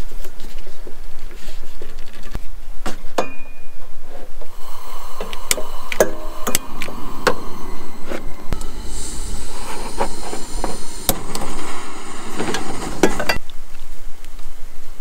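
Camp cooking gear being handled: a propane cylinder fitted to a single-burner camp stove and a cast iron skillet and pots set down on a plastic tailgate, with scattered clicks and knocks. A hissing stretch starts about nine seconds in and cuts off suddenly near the end.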